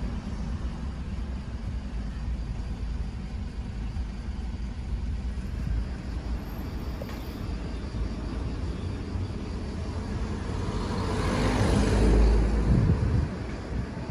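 Car engine and road noise heard from inside the car, a steady low rumble. It swells louder about eleven to thirteen seconds in, then dies down again.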